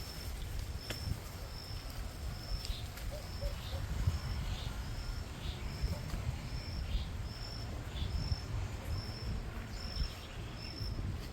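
Cricket chirping: a short, high chirp repeated evenly about once a second, over a steady low rumble.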